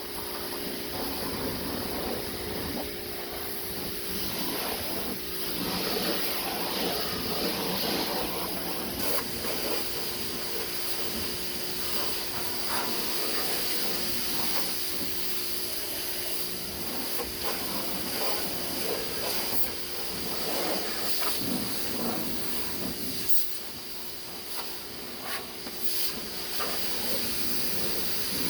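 Pressure washer running, its jet of water hissing steadily as it sprays down a lawn mower, over a constant hum from the machine's motor or pump.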